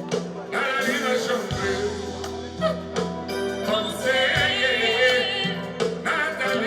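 Live Congolese rumba music: a band plays a steady bass line and regular drum hits while a singer holds wavering notes over them.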